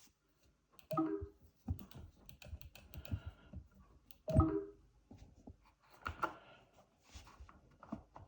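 Arcade-style controller buttons and joystick clicking in quick irregular presses, like typing. Two short pitched snippets of playback audio come through about a second in and, louder, just past four seconds.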